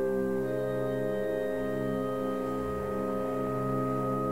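Live orchestral music with a solo cello: a slow, steady chord of many sustained tones held throughout, with one note moving to a new pitch about half a second in.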